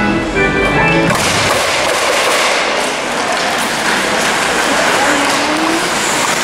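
Ice hockey arena crowd noise during play: a dense, steady wash of cheering and shouting, with a short run of held musical notes in the first second and a rising shout about five seconds in.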